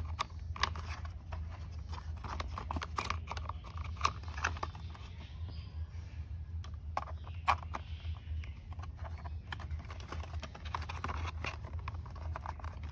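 Plastic toy car parts clicking and knocking irregularly as plastic wheels are handled and pressed onto a toy car's axles, over a steady low hum.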